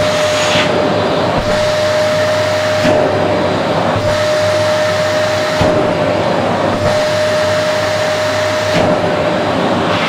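Vacuum cleaner running with suction through its bare hose end as it is drawn over a fabric pillow: a steady whine over the airflow noise. The hiss of the air brightens and dulls every second or two as the hose end moves across the cloth.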